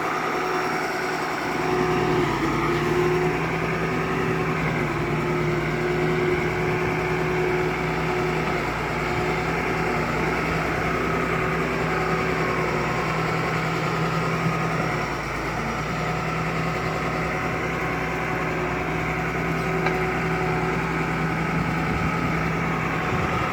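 Bulldozer's diesel engine running at steady revs, with a brief dip about fifteen seconds in.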